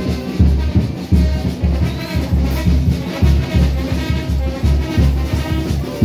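Brass band music with a steady bass-drum beat, about two beats a second, playing for street dancers.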